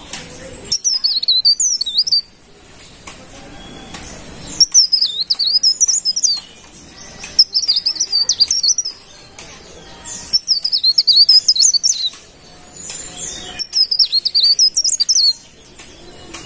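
Cikrak daun, a small Phylloscopus leaf warbler, singing: five high, rapid twittering phrases of about one and a half seconds each, separated by pauses of a second or two.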